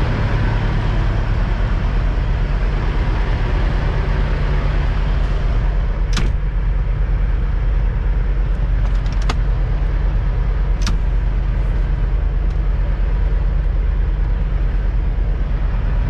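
Semi-truck's diesel engine running steadily at low revs while the rig is eased backward, with a few sharp clicks about six, nine and eleven seconds in.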